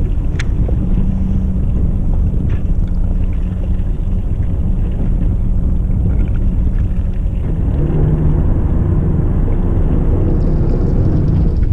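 Fishing boat's engine running steadily: a low hum over a rumble, with a sharp click about half a second in.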